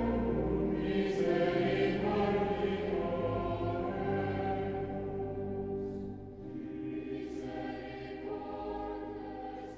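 Music with a choir of voices singing held notes, growing gradually quieter toward the end.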